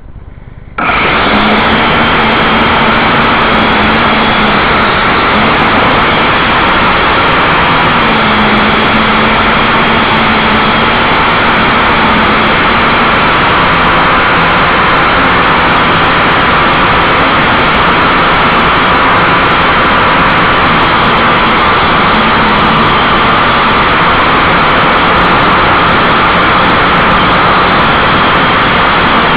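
JJRC 8HC quadcopter's motors and propellers heard through its own onboard camera's microphone, starting suddenly about a second in and then running loud and steady through the flight.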